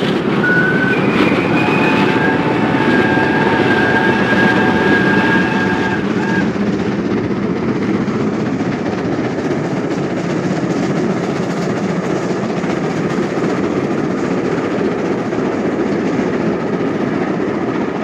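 Archive recording of a British Railways Britannia class steam locomotive working a train: a loud, steady, dense running noise. Several steady high tones come and go in the first six seconds.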